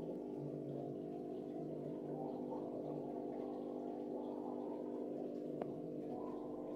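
Steady hum of aquarium equipment, most likely the filter or air pump motor, picked up by a camera inside the tank. There is one sharp click a little past halfway.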